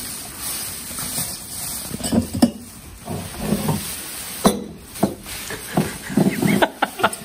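Bubble wrap crinkling and rustling as a body wrapped in it moves and reaches, with several sharp clicks and knocks as a drinking glass is taken from a cupboard and set down on a countertop.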